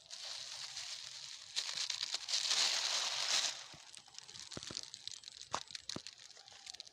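A bag full of collected plastic waste rustling and crinkling as it is handled and closed, loudest in the middle, then a few scattered light crackles.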